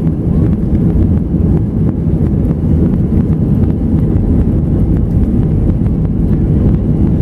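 Cabin noise of an Airbus A320 taxiing, heard from inside the cabin: its CFM56-5A engines running at low thrust together with the rumble of the airframe rolling on the ground, a steady low rumble.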